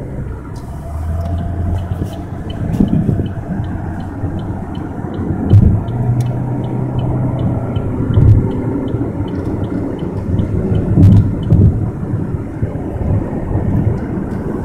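Road noise inside a car moving at highway speed: a steady low rumble of engine and tyres, with a dull thump every few seconds and a faint, regular high ticking.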